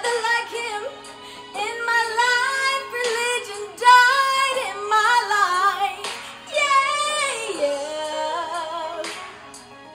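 A young woman sings a gospel song solo into a handheld microphone, in long melismatic runs whose pitch bends up and down. The singing softens near the end.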